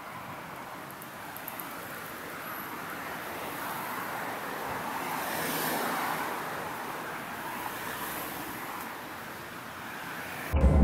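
Outdoor road-traffic noise, with a car passing that swells to a peak about halfway through and then fades. Near the end it gives way abruptly to a much louder low rumble.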